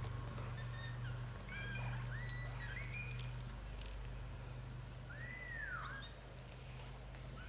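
A British shorthair mother cat and her nursing kittens: a steady low purr runs throughout, over several short high kitten mews and one longer mew about five seconds in.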